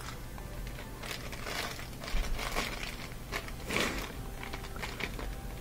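Faint crinkling and rustling of packaging being handled, in a few soft irregular bursts.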